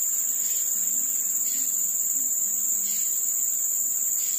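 Steady, high-pitched insect chorus, shrill and unbroken.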